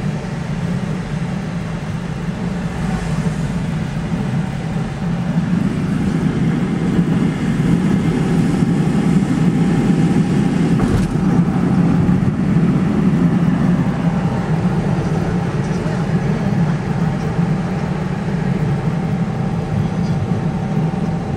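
Road noise inside a moving car's cabin at highway speed: a steady low rumble of tyres and engine that swells through the middle stretch, with a single brief click about eleven seconds in.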